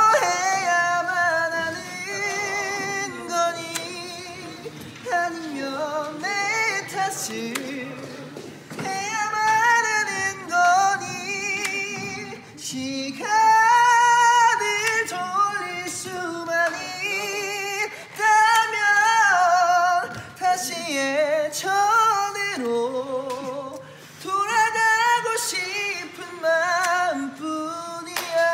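Music: a song whose singing voice carries a wavering melody with strong vibrato, phrase after phrase.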